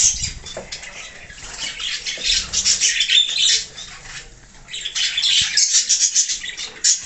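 Small birds chirping and squabbling in quick, busy runs, with wings fluttering, as they gather to feed.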